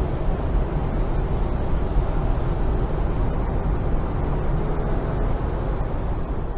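Steady rumbling background noise of a large exhibition hall, even and without any clear rhythm or pitch.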